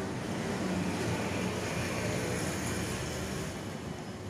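Motor vehicle traffic: a steady engine rumble with road hiss.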